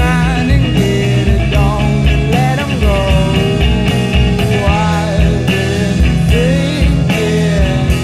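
Psychedelic rock band playing an instrumental passage: a lead electric guitar line with bending, sliding notes over a steady drum beat and bass.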